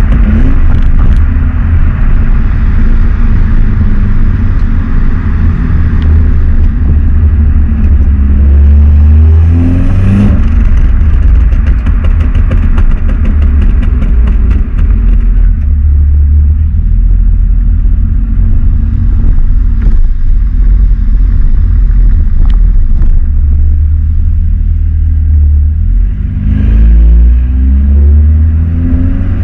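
Stock Volkswagen Golf 7 R's turbocharged 2.0-litre four-cylinder exhaust under way, with a heavy low rumble throughout. The revs climb twice, about eight seconds in and again near the end, and a run of sharp crackles follows the first climb.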